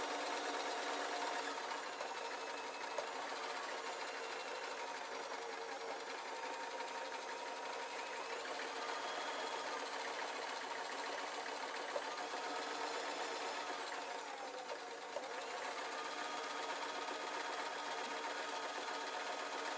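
Singer electric sewing machine running steadily as it stitches a seam through linen fabric, its motor easing down and speeding up again briefly about three-quarters of the way through.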